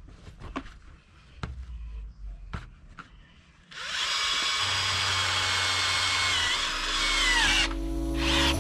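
Power drill turning an auger bit into heavy clay soil. A few light knocks come first. About four seconds in the drill starts and runs at speed, its whine dropping in pitch as it slows and stops near the end.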